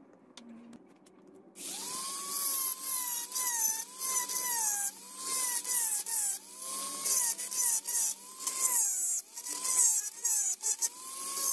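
Handheld electric rotary tool starting up about a second and a half in and cutting into a wooden knife-handle block. Its whine repeatedly sags in pitch as the bit bites under load and climbs back between passes, with a hiss from the cutting.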